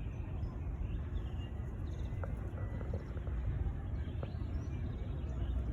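Outdoor background noise: a steady low rumble with a couple of faint ticks.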